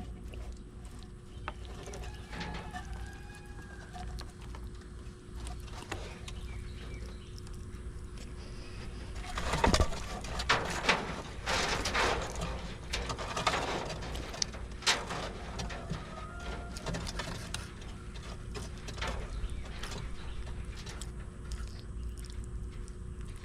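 A large lizard biting and tearing at a big chunk of food, with a cluster of knocks and crunching about halfway through. A bird calls faintly a couple of seconds in.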